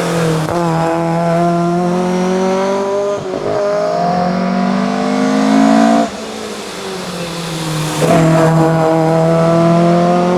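Fiat Abarth 131 Rallye's four-cylinder engine accelerating hard, its revs climbing with a short dip for a gear change near three seconds. About six seconds in the revs fall sharply as the car lifts off, then they climb again from about eight seconds.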